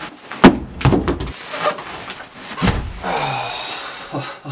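Heavy wooden thuds of boots and body weight on the plywood floor and bunk of a trail shelter, three loud knocks in under three seconds. Then a rustling stretch as someone settles onto the bunk's sleeping pad.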